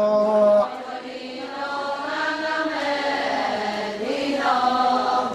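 Adi Ponung song chanted by a group of voices. A held note breaks off about half a second in, the chant goes on in long, drawn-out phrases, and a new phrase comes in about four seconds in.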